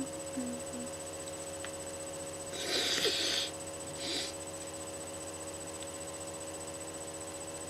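A person sniffing hard through the nose twice, a longer sniff about three seconds in and a short one about a second later.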